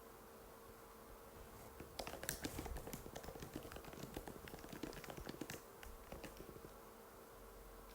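Typing on an Apple MacBook butterfly keyboard: a quick run of light key clicks starts about two seconds in and stops about six and a half seconds in, over a faint steady hum.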